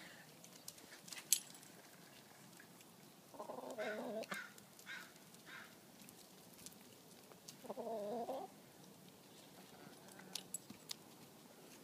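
Domestic hens calling: two drawn-out calls about four seconds apart, each roughly a second long, with a few short clucks just after the first. Faint clicks here and there.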